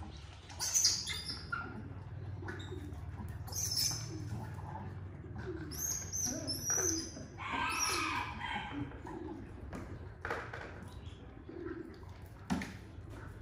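A scatter of short high-pitched chirps and squeaky calls, with a longer pitched call about halfway through, over a steady low hum.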